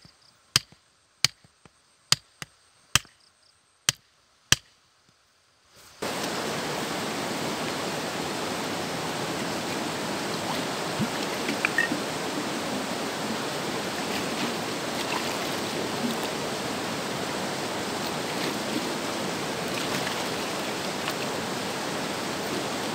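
Hatchet head pounding a wooden stake into the ground: about six sharp knocks, roughly one every three-quarters of a second. About six seconds in, this gives way abruptly to a fast-flowing river rushing steadily over rocks.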